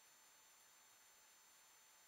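Near silence: a faint steady hiss with a few thin, steady high tones and nothing else.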